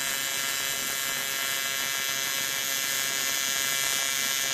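AC TIG welding arc on aluminum, burning steadily as the bead is run: an even buzzing hiss.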